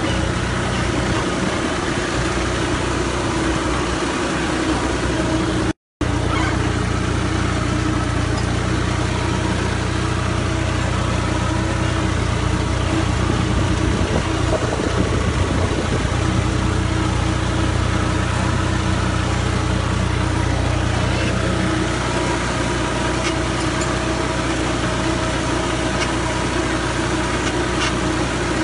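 Farm tractor's diesel engine running steadily as the tractor drives through deep mud and water. The sound cuts out completely for a split second about six seconds in.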